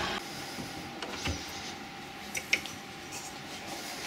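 Low steady workshop hum with a few light knocks and clicks, one about a second in and a couple more past two seconds.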